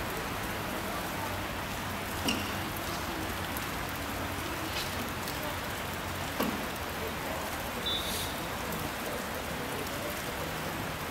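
A steady, even hiss like rain, with a few faint brief knocks and a short high-pitched tone near the end.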